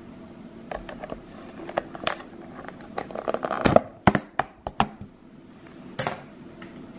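Clear lid being worked loose and lifted off a glass bowl: a string of crackly clicks and snaps, thickest and loudest from about three seconds in, with one more snap about six seconds in.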